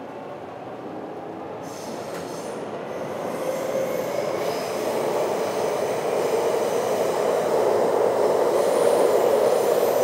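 Taipei Metro train running through a tunnel, its rushing rumble of wheels on rails growing steadily louder as it gathers speed. Thin high squealing tones come and go from about two seconds in.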